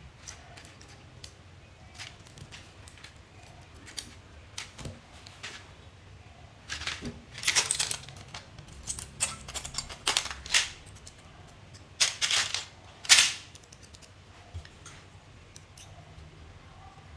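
Handling noises from hands working with small hard objects: scattered clicks and taps, with a few louder short scraping or rattling bursts in the middle.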